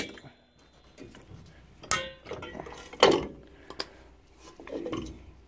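Metal clicks and clinks of drum brake hardware, the return springs, hold-down clips and shoes, being unhooked and pried off the backing plate with a small tool. A sharp click comes at the start, a clink that rings briefly about two seconds in, and another sharp knock a second later.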